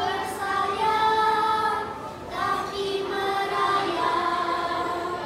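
A small group of young schoolchildren singing a song together, holding each note.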